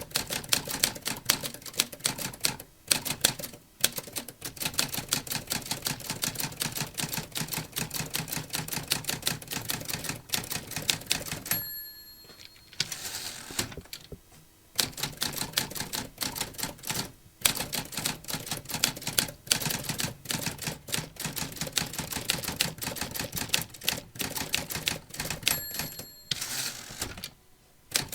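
Mechanical typewriter typed on in quick runs of key strikes. Twice, about twelve seconds in and near the end, the end-of-line bell dings and the carriage is pushed back with a sliding rasp before typing resumes.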